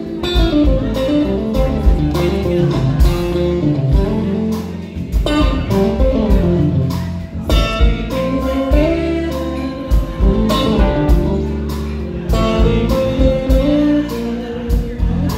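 A live band playing: guitar over bass and drums with a steady beat.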